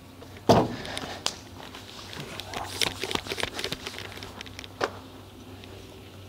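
A urethane bowling ball lands on the lane with a heavy thud about half a second in, rolls, and a couple of seconds later hits the pins in a clatter of many sharp knocks. A single knock follows near the end.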